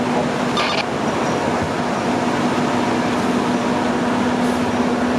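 Steady drone of a fire apparatus engine running at the scene, with a constant low hum.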